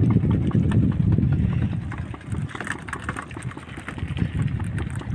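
Uneven low wind rumble on a small wooden fishing boat, with scattered taps and knocks from the line being hauled in and freshly caught tuna flapping on the deck boards, busiest around the middle.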